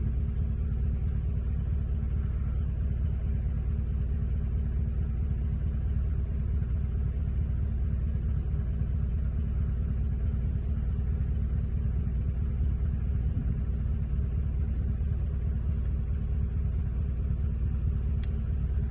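Steady low rumble of a storm, even in level throughout, with a faint steady high whine above it and a single small tick near the end.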